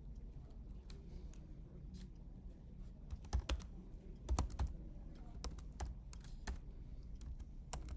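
Typing on a computer keyboard: a few scattered keystrokes, then a quicker run of key clicks from about three seconds in, over a low steady hum.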